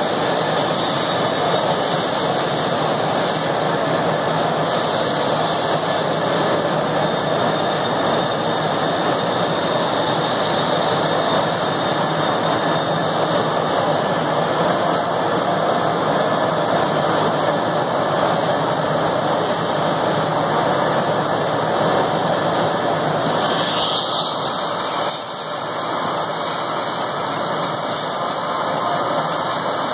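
Mitsubishi ML3015EX Plus CO2 laser cutting machine running while it cuts 1 mm cold-rolled steel sheet: a loud, steady rushing machine noise. The sound shifts briefly about 24 seconds in.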